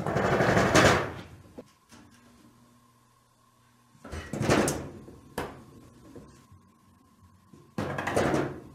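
Frosted-glass sliding door rattling in its frame three times, each rattle about a second long, as a cat paws at its edge, with a single sharp knock between the second and third.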